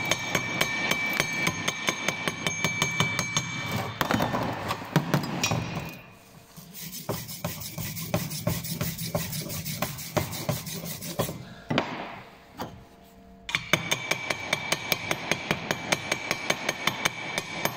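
Chipping hammer tapping rapidly on the slag of a fresh stick weld, knocking it off the fillet joint. Partway through the taps give way to a wire brush scrubbing the weld, and the quick tapping with the hammer resumes near the end.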